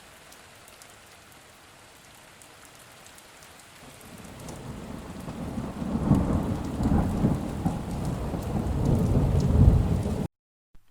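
Rain hiss with rolling thunder that builds from about four seconds in to heavy low rumbles, then cuts off abruptly near the end.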